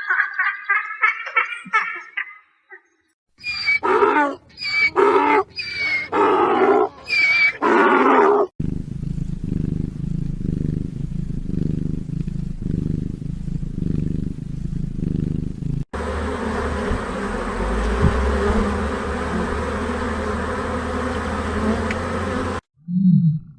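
A series of different animal calls in turn: quick pulsed calls at first, then about six loud calls that each fall in pitch, then a long low rumbling sound, then a steady low noisy stretch.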